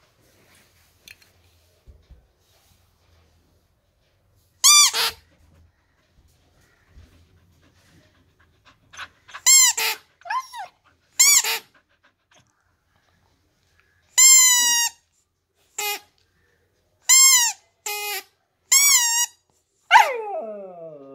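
Siberian husky giving a string of short, high-pitched squeaky whines, starting about five seconds in, then a longer call near the end that slides steeply down in pitch.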